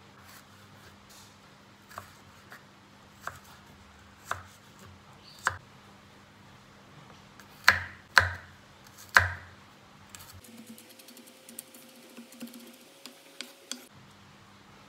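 Chef's knife slicing fresh ginger on a wooden cutting board: single knocks of the blade on the board a second or so apart, the three loudest strikes about eight to nine seconds in. From about ten seconds in, lighter, quicker taps over a faint steady tone.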